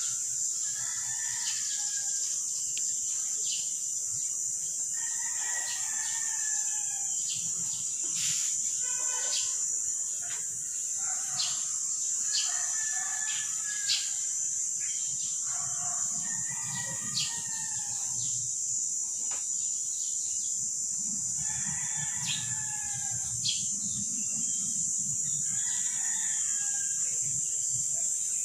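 Bird calls, about a second long, repeated every few seconds over a steady high-pitched hum. A low rumble comes up twice in the second half.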